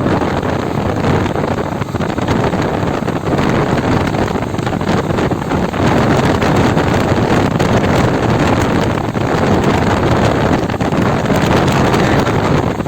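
Wind rushing over the microphone of a moving motorcycle, with the Honda SP125's single-cylinder engine and tyre noise beneath it. It gets a little louder about six seconds in.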